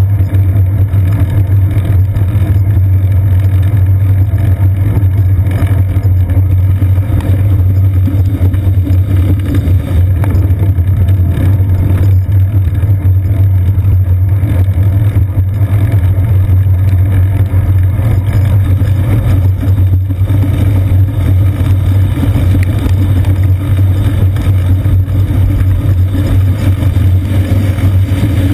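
Steady, loud low rumble of road vibration and wind picked up by a GoPro Hero 2 mounted on a bicycle's seat post as it rides along a wet paved path.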